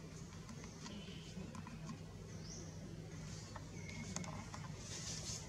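Faint outdoor ambience: scattered small clicks and light rustling over a steady low hum, with a high hiss that grows stronger near the end.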